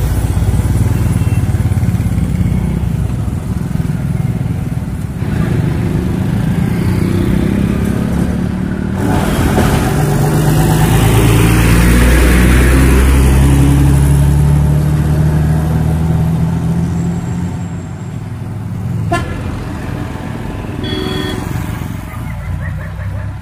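Heavy road traffic passing close by. A tanker truck and then a bus go past, their diesel engines and tyres rumbling, loudest about halfway through. A short horn toot sounds near the end.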